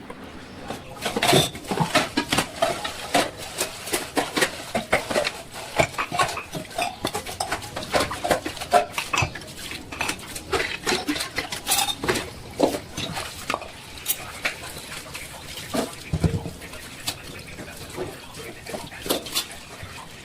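Utensils clinking, tapping and scraping against dishware in quick, irregular strokes that start about a second in and thin out near the end.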